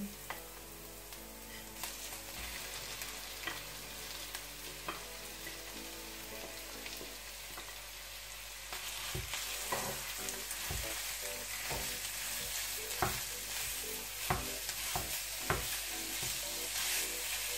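Minced beef and pork frying with onion and garlic in a frying pan. About halfway through, the sizzle gets louder as the raw mince hits the hot pan, with a wooden spatula knocking and scraping as it breaks up the meat.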